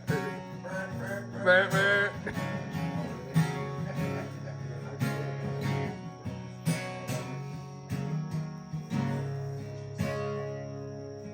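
Country music with strummed acoustic guitar. A voice sings briefly about a second and a half in, then the guitar carries on.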